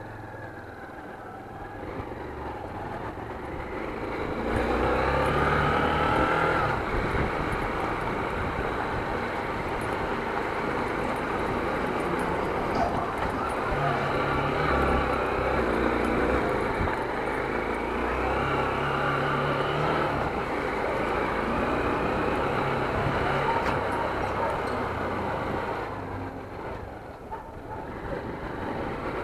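Motorcycle engine running while riding. It is quieter for the first few seconds, then picks up and rises and falls in pitch as the bike speeds up and changes gear, and it eases off near the end.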